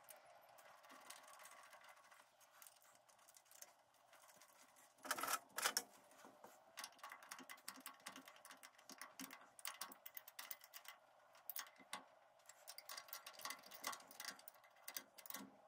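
Faint metallic clicks and clinks of a spanner and fingers working a small threaded fitting on a lathe carriage, with two louder clatters about five seconds in.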